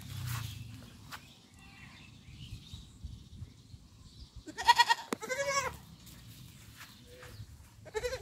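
A young goat bleating: two loud bleats in quick succession about halfway through, the second one wavering, and a short bleat near the end.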